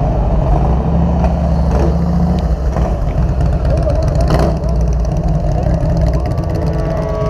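Vehicle engines running at low speed close by, their pitch shifting a few times as the throttle changes, with a brief sharp crack about four seconds in. A lowrider car and a custom cruiser motorcycle are rolling past.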